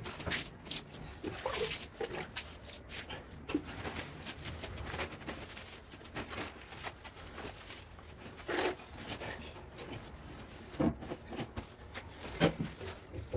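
Scattered scrapes, clicks and light knocks of stone and hand tools as marble slabs are set on a mortar bed, with a few louder knocks in the second half.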